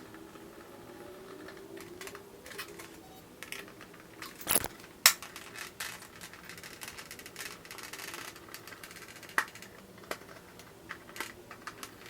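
Scattered small clicks and taps of hand tools, screws and plastic as a motorcycle windscreen is fastened to its fairing, with two sharp knocks about halfway through.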